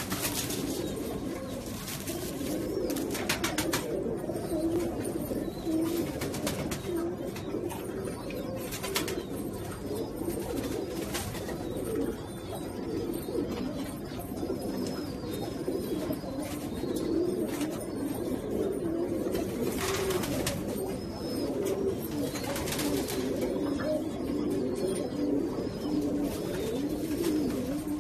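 A loft full of domestic pigeons cooing, many voices overlapping in a steady low warbling chorus. A few brief rustling noises come now and then.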